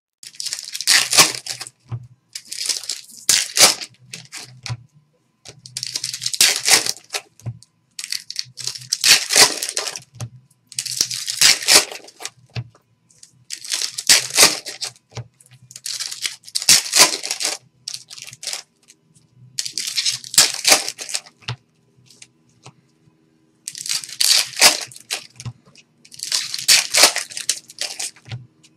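Trading-card pack wrappers being torn open and crinkled by hand, one after another, in short bursts every second or two.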